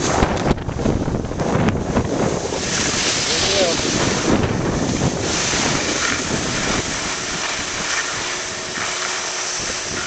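Wind buffeting a camera microphone on a skier running fast downhill: a heavy, gusty rumble for the first two seconds, then a steadier rushing hiss.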